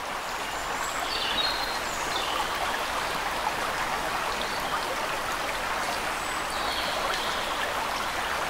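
Steady rush of running water from a stream, with a few short high chirps about a second in and again near the end.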